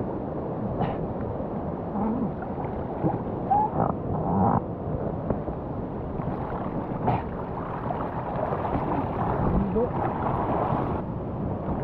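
Whitewater of a rain-swollen river rushing steadily through a rapid and drop, with a few short splashes and knocks over it.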